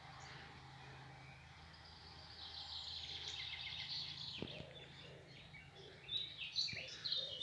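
Faint outdoor ambience with small birds chirping and trilling, the calls coming more often in the last couple of seconds.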